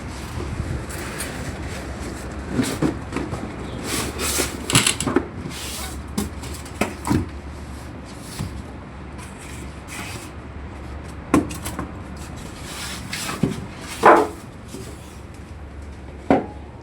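Irregular knocks, clicks and rattles of a water pump's housing cover being handled and opened, with a few sharper knocks standing out, over a steady low hum.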